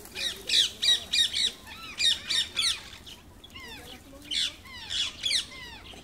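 Rose-ringed parakeets screeching: a run of high-pitched, harsh calls, several a second, coming in bunches with fainter calls in between.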